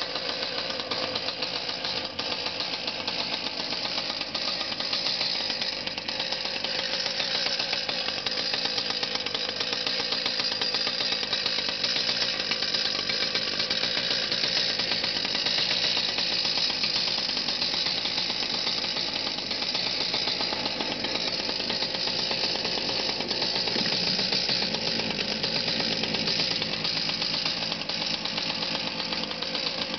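The 28cc air-cooled two-stroke strimmer engine of an RC petrol boat running steadily on its stand out of the water, a constant chainsaw-like buzz through its tuned exhaust pipe.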